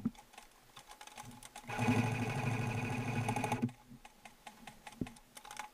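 Electric airsoft rifle firing a full-auto burst of about two seconds, a fast mechanical buzz of shots starting about a second and a half in. Fainter ticks come before it and a single sharp click near the end.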